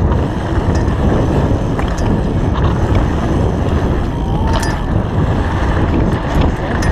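Wind buffeting the microphone and bicycle tyres running fast over a packed dirt track, with a few sharp clicks and rattles from the bike.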